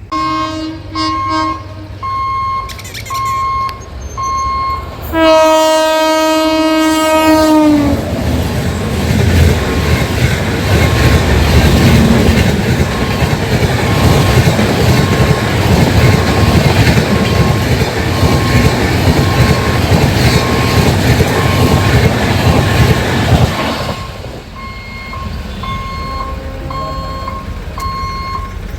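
A passenger train sounds one long horn blast of about three seconds that sags in pitch as it ends. The train then rushes past for about fifteen seconds with loud rumbling and wheel clatter. Under it all an electronic warning beep repeats about twice a second and is left alone once the train has gone.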